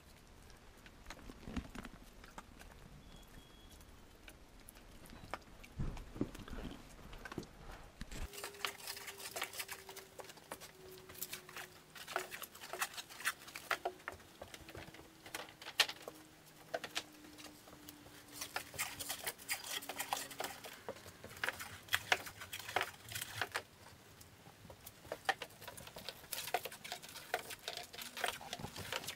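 Plastic stretch wrap being pulled off its roll around a stack of wooden frames, crackling with dense, irregular clicks, with a faint tone slowly falling in pitch under it. For the first several seconds there is only a low rumble and a couple of dull thumps.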